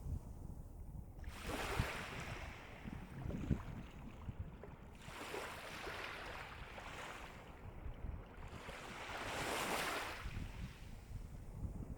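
Calm sea waves washing up on the shore, swelling and fading three times about four seconds apart.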